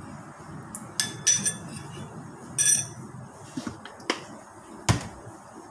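Metal spoon clinking against a ceramic bowl of sauce: a few sharp, ringing clinks in the first half, then a couple of duller knocks near the end.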